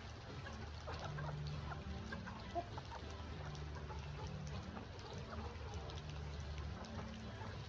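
Chickens clucking in short scattered calls, over a steady low hum, with one sharper sound about two and a half seconds in.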